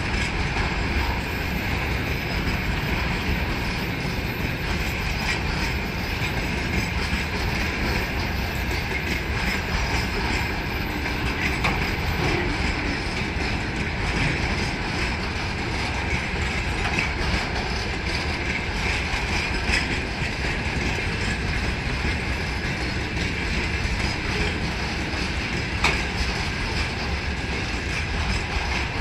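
A long string of railway tank cars rolling past at low speed as the train departs, a steady rumble of wheels on rail with occasional clicks over the rail joints.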